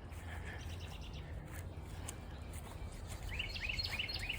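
A songbird calling: faint quick chirps, then near the end a run of about six short rising notes, over a steady low outdoor rumble.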